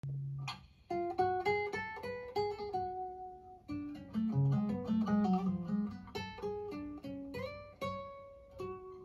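Recorded music played through Dynaudio Contour S1.4 LE loudspeakers: an instrumental intro of single plucked-string notes, one after another, each ringing and fading.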